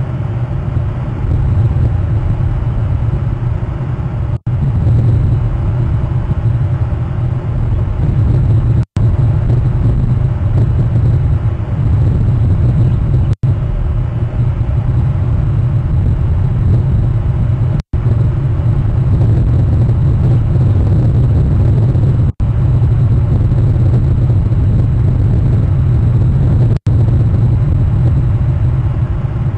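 A steady, loud low rumble, cut by a brief dropout about every four and a half seconds.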